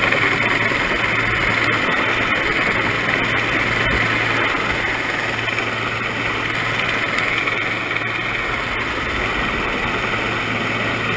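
Steady engine and rotor drone of a rescue helicopter hovering low over a boat, with a constant low hum under a broad hiss.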